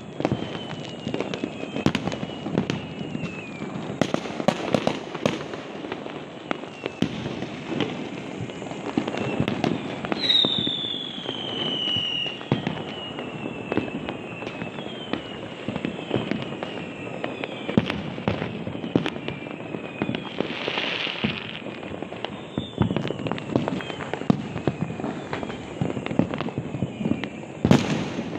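Many firecrackers and rockets going off all around in an irregular run of bangs and pops. Repeated high whistles fall in pitch, and a brief hiss comes about two-thirds of the way in.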